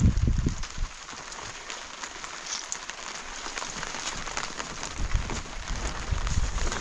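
Rain falling steadily, a dense hiss of small drop ticks, with low rumbles at the start and again about five seconds in.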